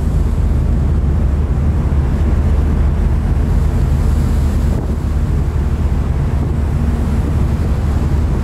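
Wind buffeting the microphone on the deck of a moving ferry: a steady low rumble, with the ship's hum and the rush of the sea beneath it.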